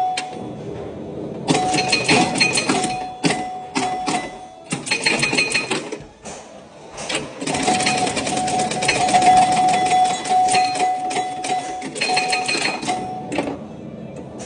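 Antique pinball machine in play: rapid runs of mechanical clacking, with bells ringing and a steady ringing tone held through the middle stretch, broken by a few short lulls.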